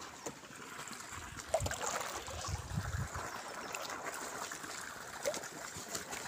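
Irrigation water trickling and flowing along a shallow earth furrow, with a few faint clicks.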